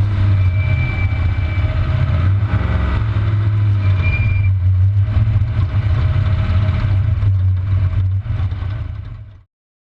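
Trophy truck's race engine idling with a steady low rumble, fading out about nine seconds in.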